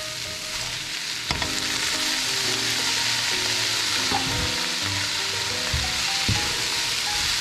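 A stir fry of chicken sausage and vegetables sizzling in oil in a frying pan, getting louder about a second in as the cabbage goes in, with a few sharp knocks of the utensil against the pan while it is stirred.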